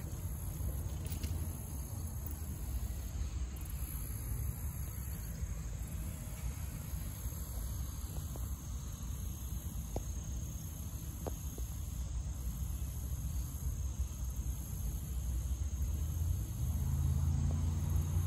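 Summer pond-side ambience: a steady high buzz of insects over a low rumble that swells near the end.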